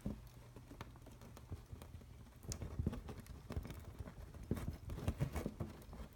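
Hands working an elastic Bongo Tie and a paper clip through a hole in a cork bulletin board. Irregular light taps, clicks and fiddling sounds, busier from about two and a half seconds in.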